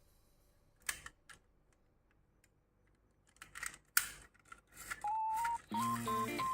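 A few light, sharp clicks and taps, the loudest about four seconds in. Near the end a beep-like tone sounds, then background music with a melody starts.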